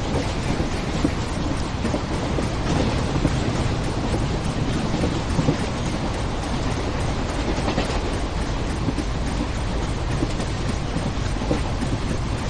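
Railway train running on the track: a steady rumble of wheels on rails with faint irregular clicks.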